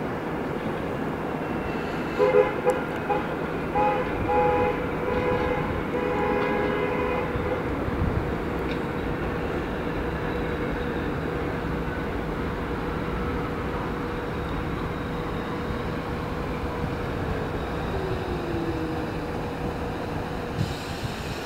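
Staten Island Railway R44 subway train sounding its horn on approach: a few short blasts about two seconds in, then a longer one, over the steady rumble of the train coming in. Near the end a falling whine sounds as the train slows into the station.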